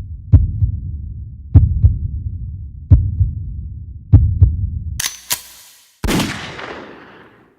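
Heartbeat sound effect: deep double thumps about every 1.2 seconds, four of them, over a low throb. About five seconds in it gives way to two sharp cracks, then a noisy crash that fades out over about a second and a half.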